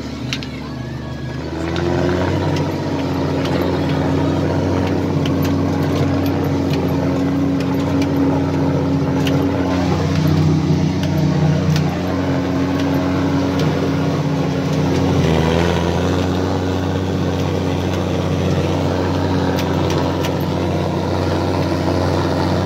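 Deutz-Fahr Agrotron M650 tractor's six-cylinder diesel engine running steadily as the tractor drives across the field, heard from inside the cab. It gets louder about two seconds in and dips briefly about fifteen seconds in.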